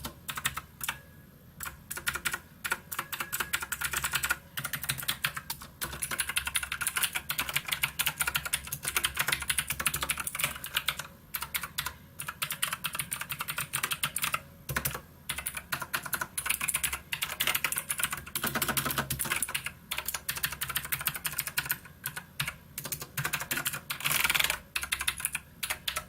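Fast typing on a SKYDIGITAL NKEY Z1 mechanical keyboard: a dense run of key clicks, broken by a few short pauses.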